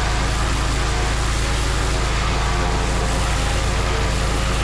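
Pressure washer spraying: a steady hiss of the water jet over a constant engine hum.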